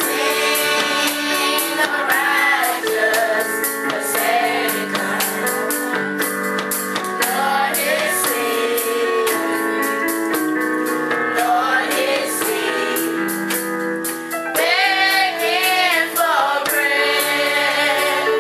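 A youth choir singing a gospel song with female and young voices, over sustained instrumental accompaniment, with percussion keeping a steady beat.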